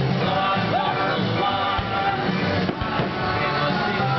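A rock song with a singer, playing loud and steady.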